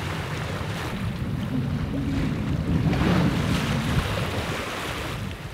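Wind buffeting the microphone over the rush and splash of sea water along a sailing yacht's hull as she sails under way through choppy waves.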